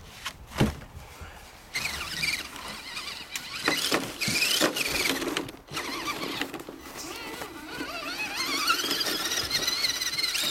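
Whine of an RC crawler's electric motor and gears, rising and falling in pitch as the throttle is worked, with a long rising whine near the end. A single knock about half a second in.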